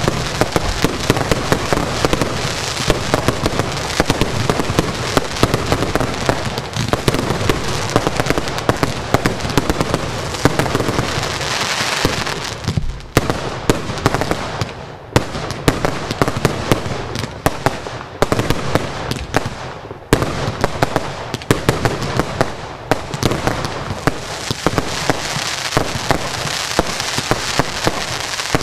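A fireworks finale barrage: a dense, unbroken string of bangs and crackling bursts going off in rapid succession. It thins briefly a couple of times around the middle before filling back in.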